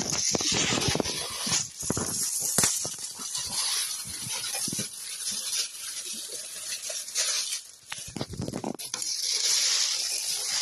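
Plastic wrapping crinkling and rustling as it is handled and pulled off, with scattered light knocks from the box. The crinkling grows louder again near the end.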